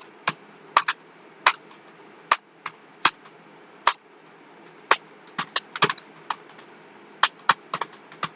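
Computer keyboard being typed on: irregular key clicks, a few a second with uneven pauses, as a passage is copied in a typing-speed test, over a faint steady hum.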